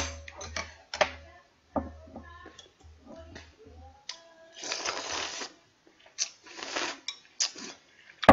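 Someone eating clam kalguksu noodles close to the microphone: scattered clicks and soft thumps of chopsticks and chewing, then two noisy slurps of noodles about five and seven seconds in.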